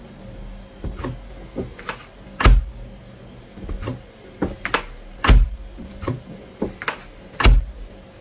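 A series of irregular knocks and thumps, about a dozen, with three much louder bangs spread through.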